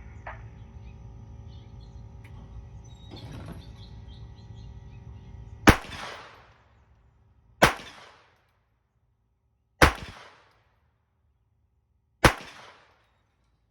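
Four pistol shots about two seconds apart, each with a short echoing tail, fired in a timed rapid-fire string meant to be five shots in ten seconds; only four got off before time ran out.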